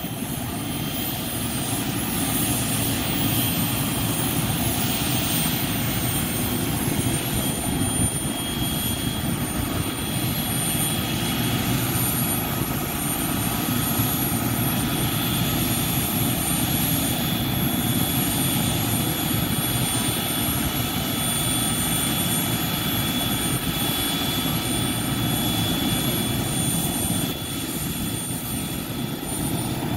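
Bell 206 JetRanger helicopter running on the pad before lift-off, its turbine and turning rotors making a steady loud noise. A thin high turbine whine edges up in pitch a couple of times as it readies for takeoff.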